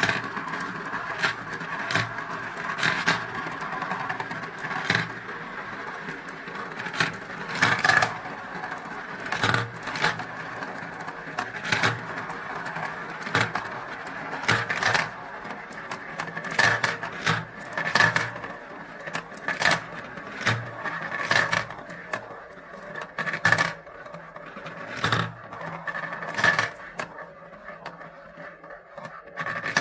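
Glass marbles rolling around the inside of clear plastic funnel bowls of a marble run, a continuous rolling rumble with a ringing tone. Sharp clicks come several times a second as marbles knock together and drop into the plastic tubes. The sound thins and quiets near the end as fewer marbles are left.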